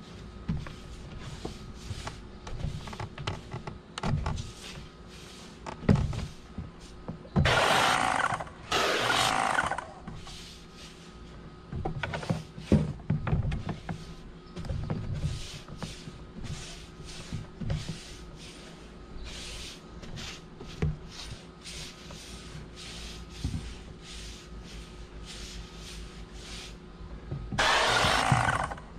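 Hose-fed pole stain brush scrubbing and knocking along painted stair treads, a steady run of short scrapes and thuds. Twice, about 8 seconds in and near the end, a louder burst of hissing lasts a second or two.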